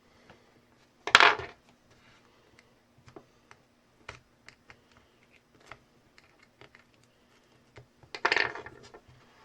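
Small tool clicking and tapping against the phone's cracked camera lens glass and old adhesive as it is picked off, with two louder scrapes, one about a second in and one near the end.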